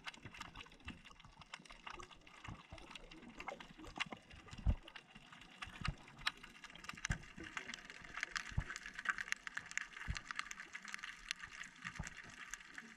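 Faint underwater ambience: a dense, irregular crackle of small clicks, with a couple of louder soft knocks, the first about a third of the way in.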